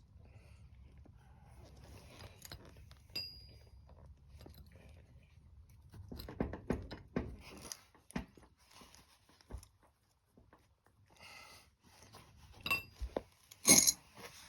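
Clinks, scrapes and knocks of hand tools on metal as the garden tractor's front wheel is fitted and its nut worked on the spindle. There is a short ringing metal ping about three seconds in, a cluster of knocks after six seconds, and the loudest clank just before the end.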